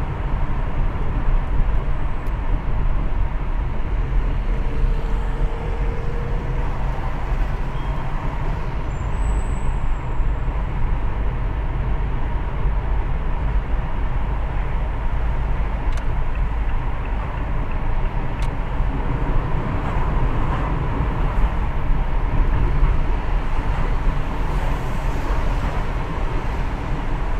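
Steady road noise of a car driving along, mostly a low rumble that holds even throughout.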